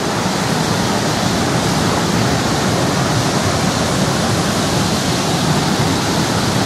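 Loud, steady rush of stream water.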